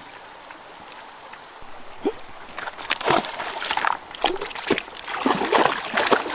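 A dog splashing through stream water: after a couple of seconds of steady stream rush, a run of irregular splashes and sloshes begins and keeps going.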